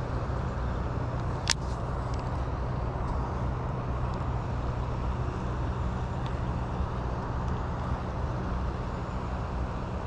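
Steady low outdoor rumble, like distant road traffic, with a single sharp click about one and a half seconds in.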